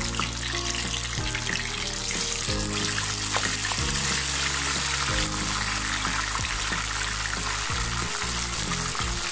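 Spiced raw potato slices deep-frying in hot oil with a steady, dense sizzle as a spatula stirs them through the oil. Soft background music plays underneath.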